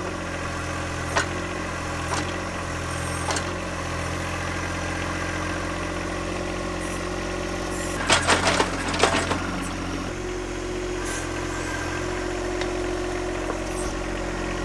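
John Deere 1025R compact tractor's three-cylinder diesel running steadily while it works the 260 backhoe, with a few sharp knocks early and a cluster of louder clanks about eight to nine seconds in.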